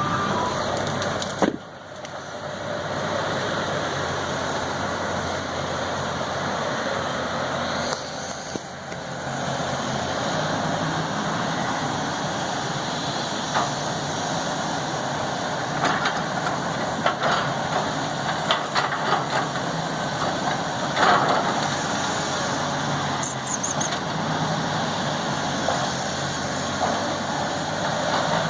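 Backhoe's diesel engine running steadily, with a few short knocks in the second half.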